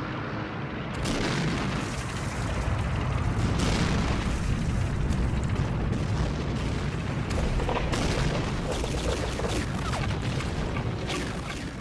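Battle sounds: a continuous rumble of explosions with rapid gunfire and sharp blasts over it, growing denser in the second half.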